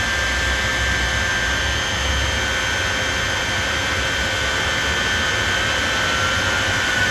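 Shockwave jet truck's Pratt & Whitney J34 jet engines running steadily with the truck standing still, a loud rush with a steady high whine. One whine tone starts to rise near the end.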